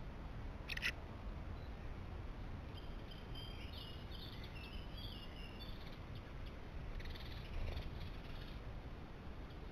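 A small songbird twittering in the background for about three seconds, in quick high repeated phrases, over a steady low outdoor rumble. A sharp click comes about a second in, and a short rustling noise near the end.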